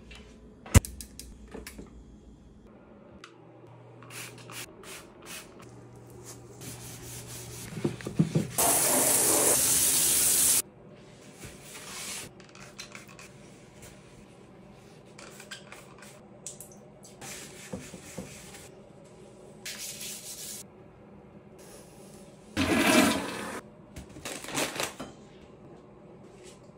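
Household cleaning sounds in quick succession: a sharp click near the start, a loud rushing hiss of water for about two seconds a third of the way in, and later a shorter rush plus scattered bursts and rubbing.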